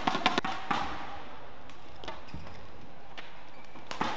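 Badminton play: a quick cluster of sharp racket hits on the shuttlecock at the start, over a steady arena background, with another sharp hit near the end as the next rally begins.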